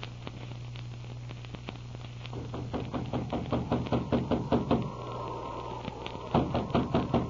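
Radio-drama sound effects: footsteps drawing nearer, a quick run of short strikes that gets louder, then louder, sharper knocks near the end, as on a wooden door. A low steady hum from the old recording runs underneath.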